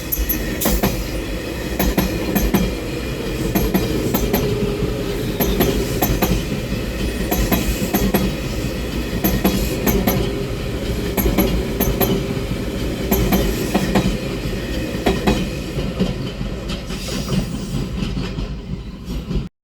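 JR Shikoku 8000 series limited express train rolling slowly past. Its wheels clack over a rail joint in evenly spaced pairs, about one pair every two seconds, over a steady low rumble.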